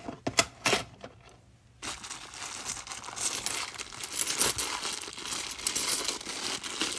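A few short clicks, then from about two seconds in continuous crinkling of a clear plastic bag full of £2 coins being worked open in the hands.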